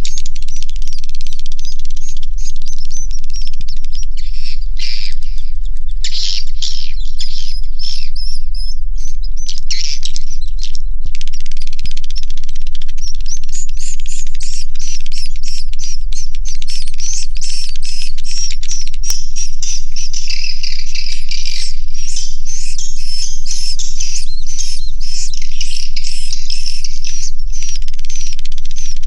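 A large number of edible-nest swiftlets chirping and twittering inside a swiftlet house: a dense, rapid chatter of high chirps that thins briefly about eleven seconds in and then gets busier. A steady low hum runs underneath.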